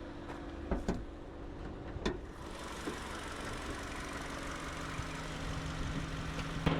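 A car engine idling with a steady hum, with a few sharp clicks in the first two seconds and a hiss that comes up about two and a half seconds in.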